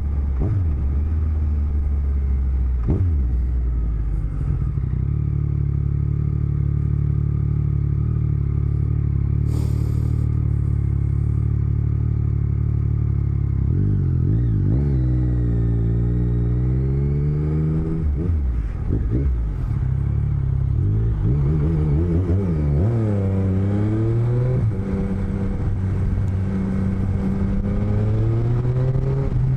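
Motorcycle engine under way, heard through microphones in the rider's helmet cheek lining, with wind and road noise. The engine note holds steady for the first half, then falls and rises again several times as the rider slows and speeds up.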